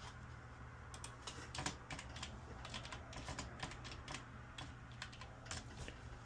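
Typing on a computer keyboard: a run of quick, irregular key clicks starting about a second in, over a faint steady low hum.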